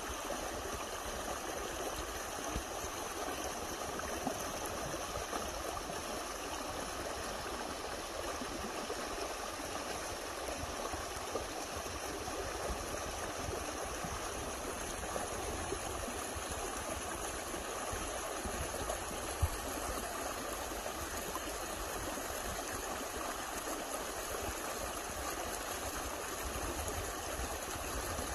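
Small forest stream running over a low step of stones: a steady rush and splash of water.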